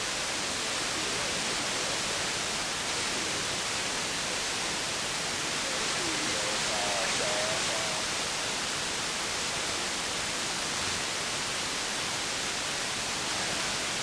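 CB radio receiver hiss and band static between transmissions, with a faint, wavering distant voice breaking through about six to seven seconds in.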